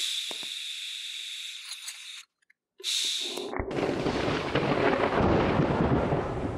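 TIG welder (HTP 221) working on thin stainless steel: a high-pitched hiss from the high-frequency start, breaking off and coming back briefly, then about three and a half seconds in the arc lights and runs with a steady, louder crackling buzz.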